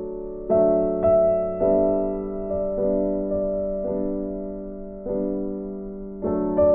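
Soft keyboard background music: slow notes and chords struck about once a second and left to ring and fade.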